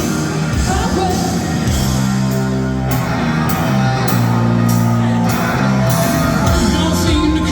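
Live rock music: a band plays held chords over a steady drum beat that comes in clearly about three seconds in, with a male voice singing near the start and again near the end.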